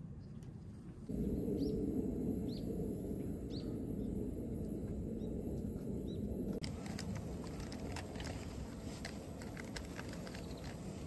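Portable gas stove's burner running with an even low hiss under an aluminium kettle, with short rising bird chirps about once a second over it. About two-thirds of the way through, the hiss changes and a patter of small ticks and crackles sets in.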